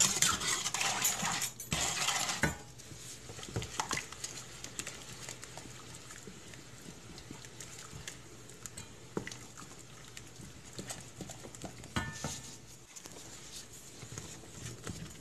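Wooden spoon stirring a thick, sticky sugar topping in a metal saucepan, scraping the pan and knocking against its sides. The scraping is loud for the first two and a half seconds, then quieter, with scattered knocks.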